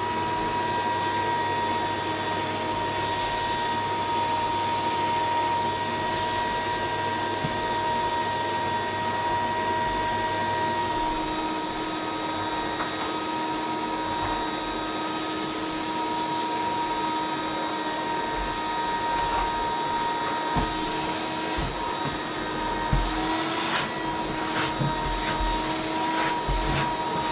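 Vacuum cleaner running steadily with a high motor whine. From about two-thirds of the way in, short knocks and clicks from the cleaner head bumping and rubbing along the floor.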